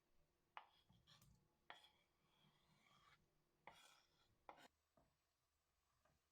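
Faint, irregular light knocks and taps of household objects being handled, about six in all, some followed by a short scrape.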